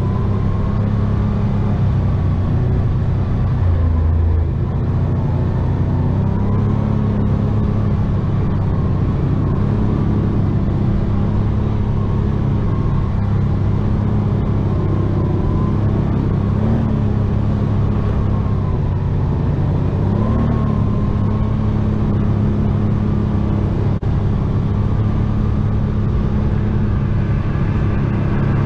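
ATV engine running steadily while riding, with a few brief small rises in pitch as the throttle is opened.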